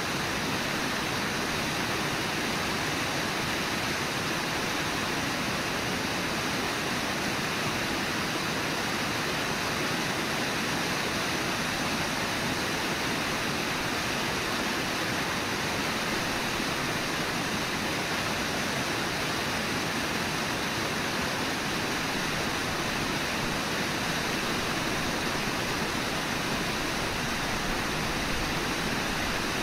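Steady rush of the fast-flowing Brooks River, an even, unbroken wash of water noise.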